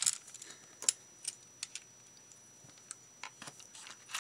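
Beads clicking as they are handled and threaded onto a pokie tool's metal pin: scattered, irregular small hard clicks, the loudest about a second in.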